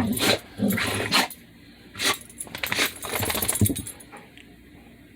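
Two dogs sneezing at each other: about five quick, sharp sneezes and snorts in the first four seconds, then they stop.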